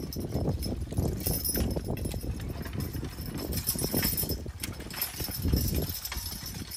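A team of two Belgian draft horses walking steadily while pulling a riding plow through the ground: irregular hoof falls, with scattered short clinks and knocks from the harness and plow.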